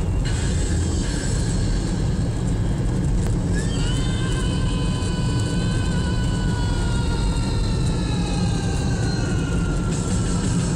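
Wind rushing and road noise through an open car window while driving on a gravel road, a steady heavy rumble. From about four seconds in, faint high tones glide slowly downward over it.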